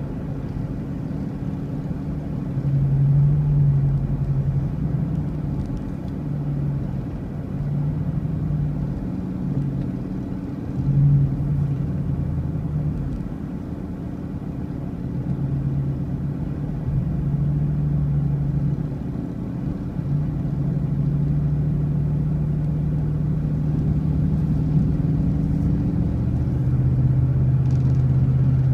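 Motor vehicle driving along a road: a steady low engine drone over road rumble, the engine note shifting slightly up and down in pitch.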